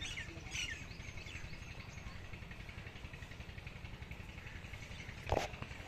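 Birds chirping, with a few short chirps in the first second, and one sharp knock about five seconds in.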